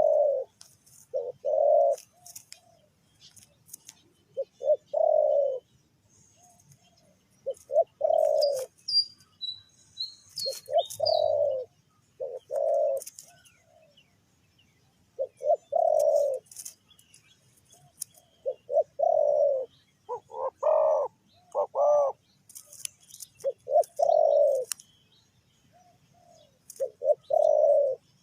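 Spotted doves cooing: short phrases of a few quick notes ending in a longer coo, repeated every three or four seconds. A small bird chirps briefly about nine seconds in.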